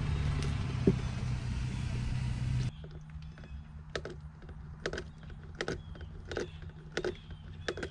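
A steady low rumble stops abruptly about a third of the way in. After that, a hand pump on a bottle of gear oil is worked in steady strokes, clicking about every three-quarters of a second as it pushes oil up into an outboard's lower unit through the bottom drain hole.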